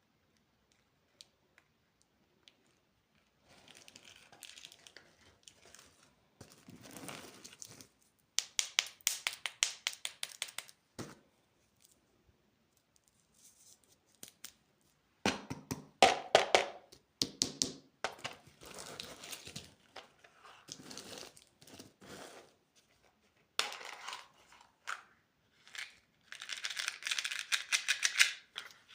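Plastic candy wrappers crinkling and tearing as packages are opened, in irregular bursts of rustling with rapid crackly clicks and short pauses between them, after a quiet first few seconds.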